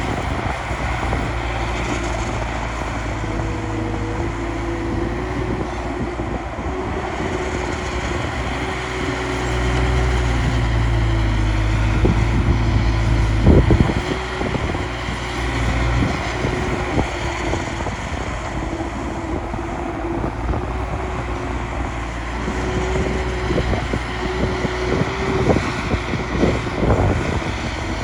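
Heavy diesel earthmoving machinery running steadily, its engine drone louder for several seconds in the middle, with a few sharp knocks.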